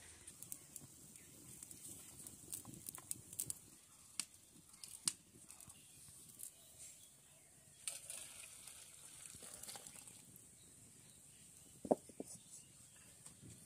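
Faint cooking sounds over a small wood fire: a light hiss with scattered small clicks and taps of utensils. Near the end, a short metallic clank as the kadai is tipped against the steel bowl of dal.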